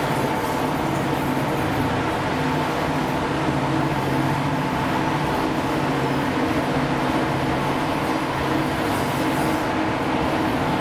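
Class 55 Deltic diesel locomotive 55019, with its two Napier Deltic two-stroke engines, running steadily: an even engine drone with a steady higher tone above it.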